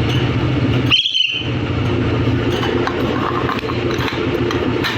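A pet hill myna gives one short, bright whistle about a second in, over a steady, engine-like low hum.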